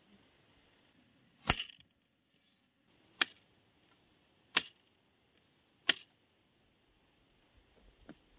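Four sharp, hard knocks of bamboo pieces striking one another as a bamboo trap is set, each with a brief ring and coming at intervals of about a second and a half.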